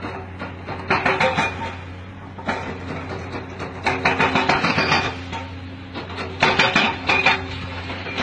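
An engine runs with a steady low hum. Over it come repeated bursts, about a second each, of fast mechanical rattling and clattering, many strokes a second.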